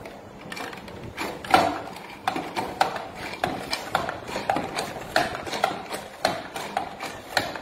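Manual sliding fruit slicer cutting an orange: the pusher box is slid back and forth over the stainless steel blade, each stroke giving a plastic-and-metal clack. The clacks start about half a second in and come in a quick, irregular run of roughly three a second, loudest about a second and a half in.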